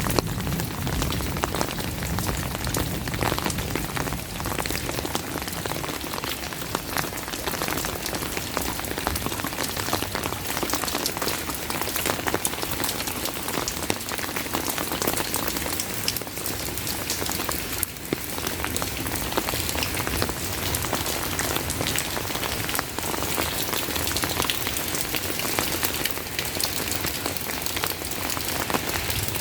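Steady heavy rain, with a dense stream of close raindrop hits. At the very start the tail of a low thunder rumble dies away.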